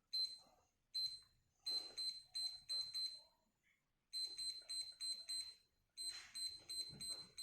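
Digoo DG-AN0211 weather station alarm clock giving a short high beep for each press of its up/down buttons while the date is being set. A couple of single beeps come first, then three quick runs of about four beeps a second with short pauses between.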